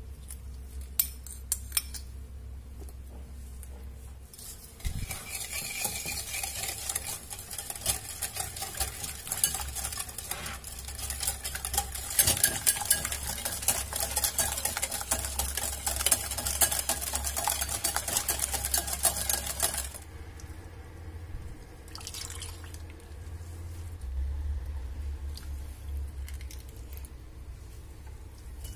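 A few light taps, then a wire balloon whisk beating eggs and sugar in a bowl: a fast, steady rattle of the wires against the bowl that runs for about fifteen seconds and then stops.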